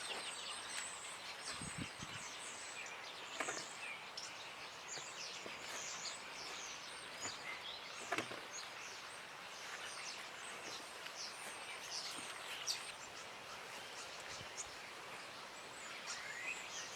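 Small birds chirping and twittering in short high calls over a steady outdoor background, with a couple of soft knocks from handling soil and potatoes.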